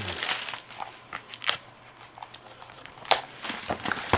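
Clear plastic bag crinkling as it is pulled off a tablet keyboard case, with a few sharp clicks or taps, the loudest about a second and a half in and about three seconds in.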